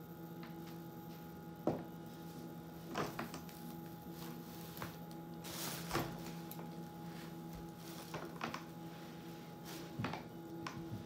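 A steady low electrical hum with a few fixed tones, broken by scattered short knocks and clicks of handling, the sharpest about a second and a half in and another about six seconds in.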